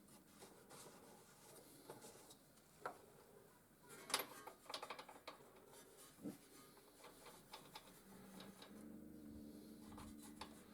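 Near silence with faint scattered clicks and light metallic knocks of parts and tools being handled, a small cluster of them about four seconds in; no engine running.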